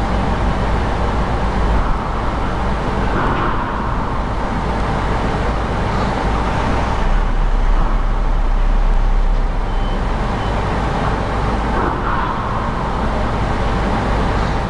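Diesel engine of an S160TQY aircraft tow tractor running as the tractor creeps forward, a steady low rumble that swells slightly about halfway through.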